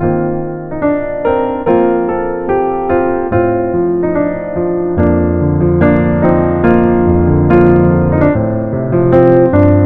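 Background piano music, a gentle melody of single notes over chords, growing fuller with a steady bass line about halfway through.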